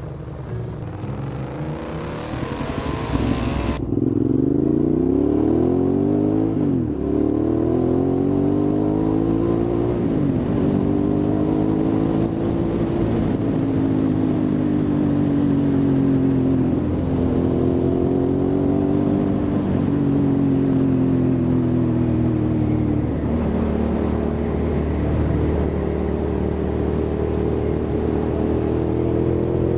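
Hyosung GT650R's V-twin engine under way, its pitch climbing and dropping again several times as it accelerates and eases off, then holding a fairly steady pitch with gentle rises and falls. A hiss in the first few seconds cuts off abruptly.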